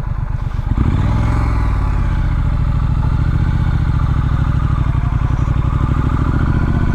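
Triumph Street Scrambler's 900cc parallel-twin engine running under way, opening up with a rise in pitch about a second in, then holding a steady note.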